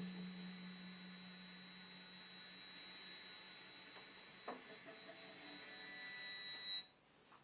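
A steady high-pitched electronic tone, with a low hum fading away beneath it; it swells, dies down and then cuts off abruptly near the end.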